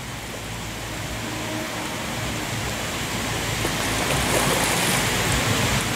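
A steady rushing noise that slowly grows louder, with a few faint splashes near the middle from a hooked carp thrashing at the pond surface.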